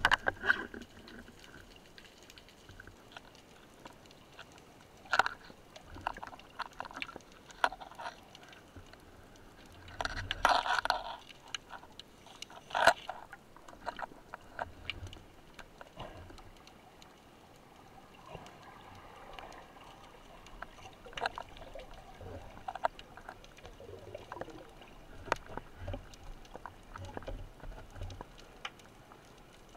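Underwater sound picked up by a camera on a speargun: water movement with scattered sharp clicks and knocks, and a louder rush of water noise about ten seconds in.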